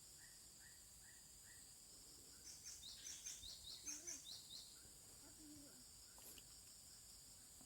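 Faint steady high drone of insects with birds calling: a series of short rising calls about three a second near the start, then a louder burst of high twittering chirps from about two and a half to four and a half seconds in.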